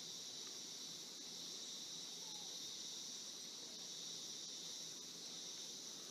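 Faint, steady chorus of insects such as crickets, an unbroken high-pitched chirring.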